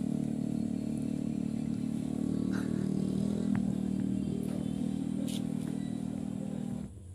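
Domestic cat purring steadily, a low continuous rumble, while its head and neck are stroked. The purr cuts off abruptly near the end.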